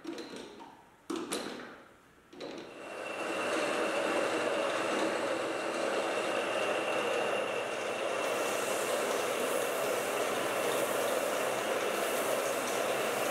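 A few knocks as bar stock is set in the lathe chuck, then from about two and a half seconds in the metal lathe runs steadily with a faint whine over the noise of the cut. From about eight seconds in, a higher hiss joins as an abrasive strip is held against the spinning bar to polish it.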